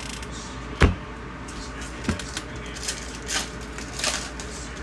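A sharp thump about a second in and a lighter knock a second later, then the crinkling and tearing of a trading-card pack's foil wrapper as it is handled and opened.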